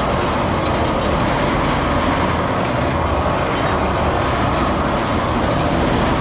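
Gemco V-blender vacuum dryer running, its drive turning the V-shaped stainless shell end over end: a steady, loud mechanical noise with no change in pace.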